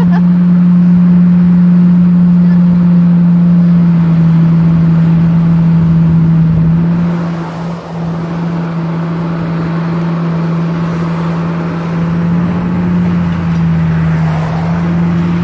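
Large diesel engine of a Komatsu PC600 hydraulic excavator running at a steady throttle while it digs, giving a loud, even, low drone. It dips briefly about eight seconds in as a pickup truck passes close by.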